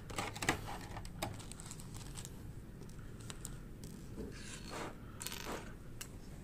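Clear plastic bag rustling and small loose plastic toy parts being handled and set down on a table, with a few light clicks and knocks.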